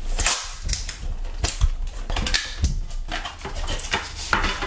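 Clear hard-plastic iPod Touch box being opened and handled: irregular sharp plastic clicks and short scrapes as the lid comes off and the device is lifted from its tray.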